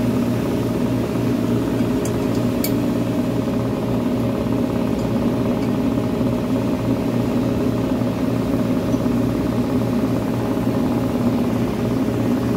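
Electric refrigeration vacuum pump running with a steady hum, drawing down the system. A few light clicks about two seconds in.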